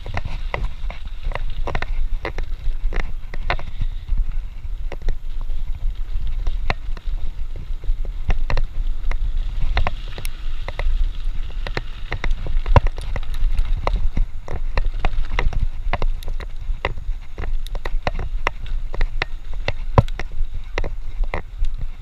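Mountain bike ridden fast over a rough dirt trail: a steady low rumble of wind and tyres, with a constant irregular stream of rattles and knocks as the bike jolts over bumps.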